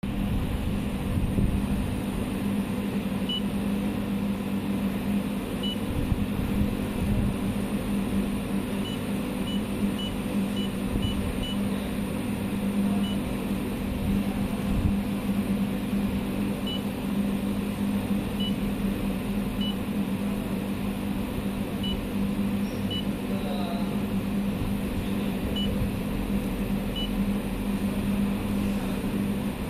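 200 kW three-phase inverter running with a steady electrical hum. Its touch-screen panel gives scattered short, high beeps as keys are pressed.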